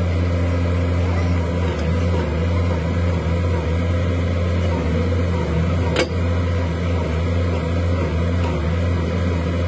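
A heavy machine's engine running at a steady idle, a low even drone, with one sharp metallic clink about six seconds in.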